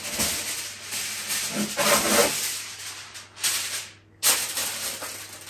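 Packaging being handled, rustling and rattling in rough bursts, loudest about two seconds in; it stops briefly just after four seconds, then starts again.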